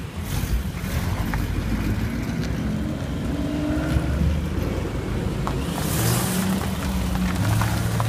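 Dodge Challenger R/T and Ford Mustang muscle-car engines idling and rolling off at low speed, a steady low drone whose pitch shifts as the cars move. There is a brief rush of noise about six seconds in.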